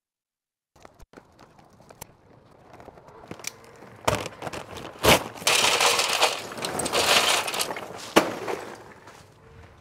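Lump charcoal clinking and clattering into a metal chimney starter from a paper bag: scattered knocks at first, then a dense rattle for about two seconds past the middle, and one sharp knock near the end.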